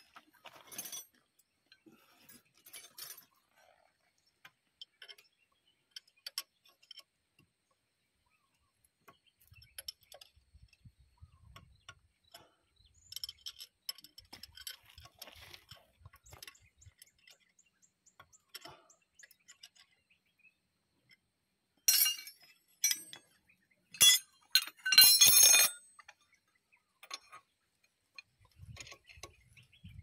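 Metal hand tools clinking and scraping against steel parts of a bulldozer's final drive hub: scattered light clicks, with louder clattering twice about three quarters of the way through.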